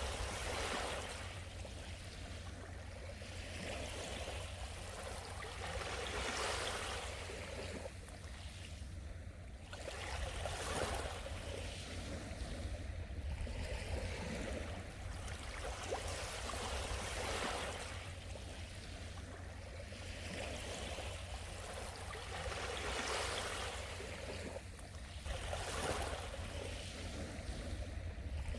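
Sea waves washing onto the shore, a surge of surf swelling and fading every two to four seconds over a steady low rumble.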